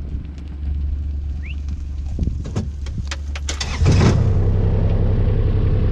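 A farm vehicle's engine running at low revs with a few sharp knocks and clicks, then about four seconds in the engine gets louder and settles into a steady, higher-powered note.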